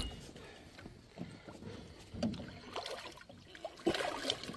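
Hooked blue catfish thrashing at the water's surface beside the boat, in short scattered splashes, the loudest about four seconds in.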